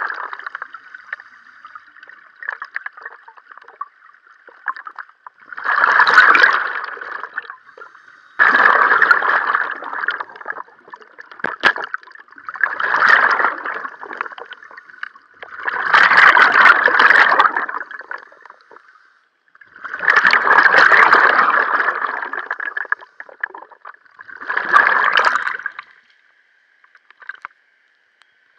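Scuba diver breathing underwater: exhaled breath bubbling out of the regulator in six bursts, roughly every three to four seconds, with a faint steady hiss between them.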